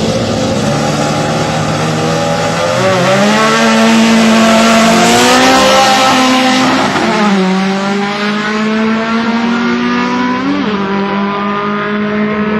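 Drag-racing car accelerating hard, its engine climbing in pitch through the revs and dropping sharply at each gear change, with shifts about seven seconds in and again near ten and a half seconds.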